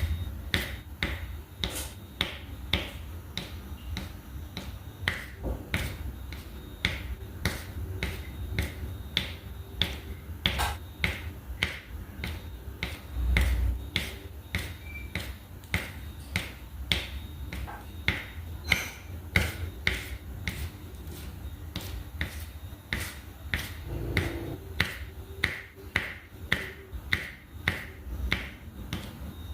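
Diamond painting drill pen tapping resin drills down onto the sticky canvas: light, sharp clicks at a steady pace of about two a second, over a low background hum.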